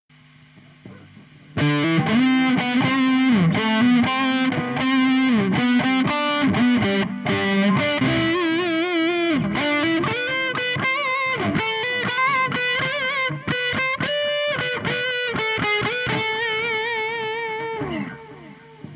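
Electric guitar fitted with revived EMG active pickups and a DIY built-in preamp, played through distortion: a lead line of single notes with bends and vibrato, ending on a held note that fades about 18 seconds in. A steady hum and hiss sits under it and is heard alone before the playing starts and after it stops, the noise of the pickups' poor signal-to-noise ratio.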